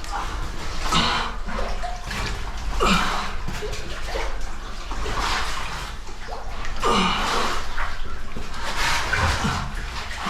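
Water splashing and sloshing in irregular surges as cavers crawl and wade through a cold cave stream passage.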